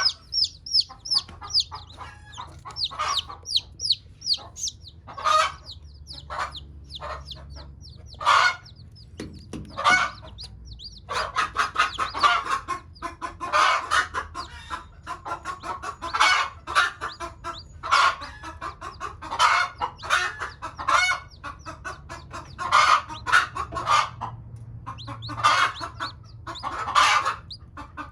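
A broody hen clucking over and over in short, irregular calls. Newly hatched chicks peep in quick, high, falling notes during the first few seconds.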